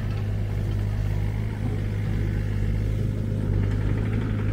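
Noisy excavator engine running with a steady low drone.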